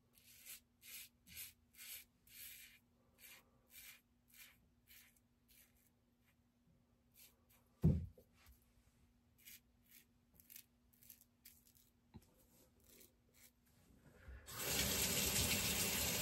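Safety razor strokes scraping through lathered stubble: short scratchy passes, two or three a second, with a single knock about eight seconds in. Near the end a tap is turned on and water runs steadily.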